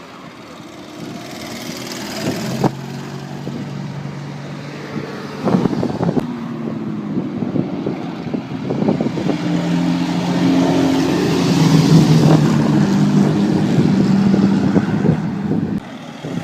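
Engines of vintage cars running as they pass close by, one after another, with a few sharp knocks. The sound builds to its loudest about two-thirds of the way through, then cuts off suddenly near the end.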